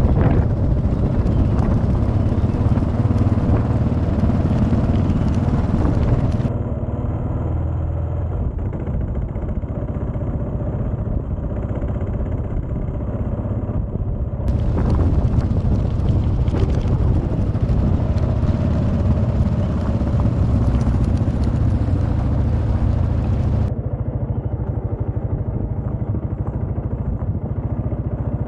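Kawasaki KLR650's single-cylinder engine running steadily as the motorcycle rides slowly along a dirt track. Over it, a hiss cuts in and out abruptly twice.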